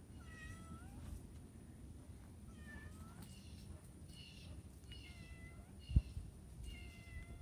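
Domestic cat meowing repeatedly, short calls about once a second. One brief low thump about six seconds in.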